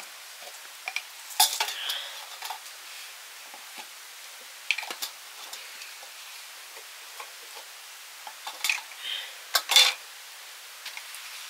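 Metal pots, dishes and utensils clinking and scraping in several short clusters, the loudest near the end, over a steady hiss.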